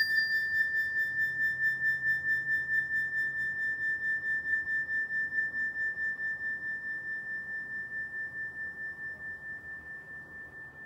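A single struck bell-like metal tone ringing on and slowly fading, with a steady wobble of about four pulses a second.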